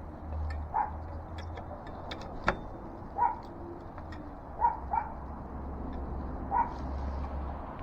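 Dogs barking off and on, about five short barks, with a sharp click about two and a half seconds in over a steady low hum.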